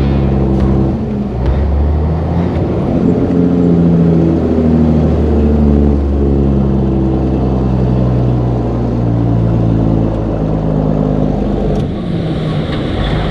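Semi truck's diesel engine heard from inside the cab as it pulls a heavy trailer load, a steady low drone with its pitch shifting up and down as the driver works the throttle.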